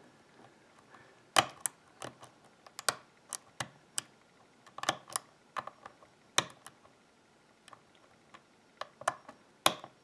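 Hook pick and tension wrench working the pins of a six-pin brass euro cylinder: irregular sharp metallic clicks, a couple a second, with a short lull past the middle, as pins are lifted and set.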